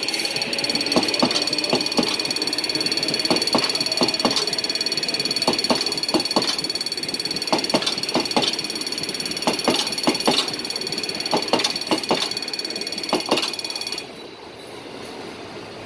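A passing train, its wheels clicking irregularly over rail joints under a steady high-pitched whine. The sound drops off abruptly about 14 seconds in.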